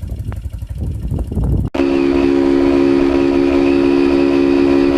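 Motorcycle engine running with a low pulsing beat, then after an abrupt cut about a second and a half in, a loud, steady drone of several held tones that does not change.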